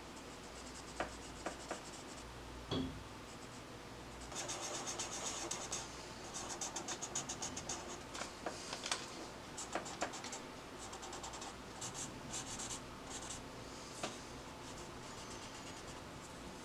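Pencil scratching on sketchbook paper in quick, short shading strokes. A few light taps come in the first three seconds, then the strokes start about four seconds in and run in dense patches.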